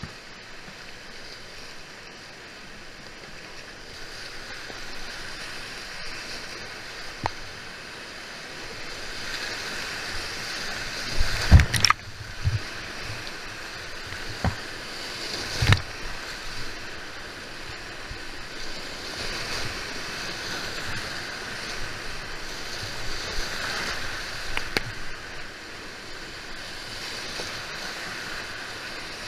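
Whitewater rapids rushing steadily around a kayak, heard from on board, with a few sudden thumps and splashes as the boat runs the waves; the loudest come about halfway through.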